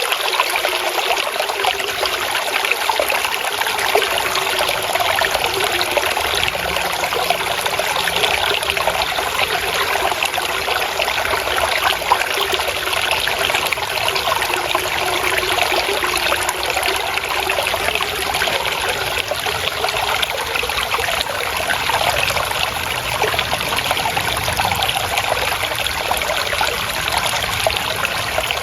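Water trickling and splashing steadily over stones in a small stream, an even babbling with no pauses.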